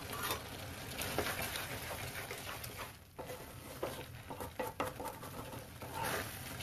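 Spatula stirring and scraping chickpeas through thick masala in a metal kadai over a high flame: irregular scrapes and soft clicks over a steady sizzle, easing briefly about three seconds in.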